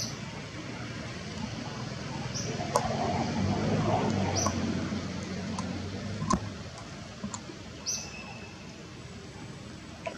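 Short, high-pitched animal chirps repeating every second or two over steady outdoor background noise, with a couple of sharp clicks.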